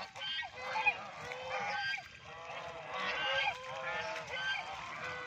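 A flock of white domestic geese honking, many short calls overlapping one another without a break.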